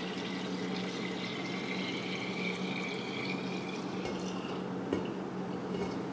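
Cooled sweet tea poured in a steady stream from a stainless steel pot into a large glass jar as the jar fills. A faint tone rises slightly over the first few seconds.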